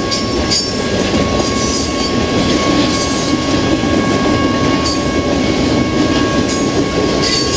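BNSF intermodal freight cars loaded with highway trailers rolling past at speed: a loud, steady rumble of wheels on rail. Over it runs a constant high ringing whine, with scattered short squeals from the wheels.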